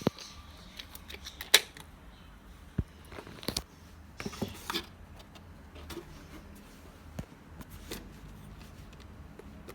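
Toy packaging being handled: scattered clicks and taps, the sharpest about a second and a half in, with short rustles of the box and plastic around three and a half and four and a half seconds in.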